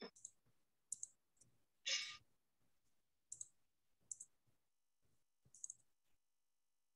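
Faint, scattered computer keyboard and mouse clicks, one or two at a time, about once a second, while text is typed into a document. One short breathy sound about two seconds in.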